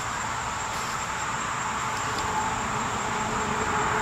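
Steady insect chorus: an even hiss with a thin, constant high-pitched drone running through it, swelling slightly near the end.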